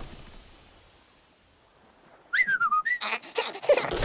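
A cartoon sound effect: after a hush, a short whistle about two seconds in that jumps up, wavers down and rises again, then a quick run of loud knocks and clatter near the end.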